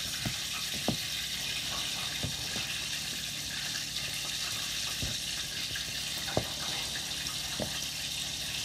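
Hand-stirring flour and dough in a large mixing bowl with a utensil, giving a few light, irregular taps of the utensil against the bowl over a steady background hiss.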